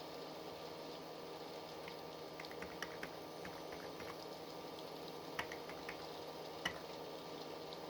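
Faint, scattered keystrokes on a computer keyboard: a short run of taps a couple of seconds in, then a few single taps, the loudest near the end, over a steady background hum.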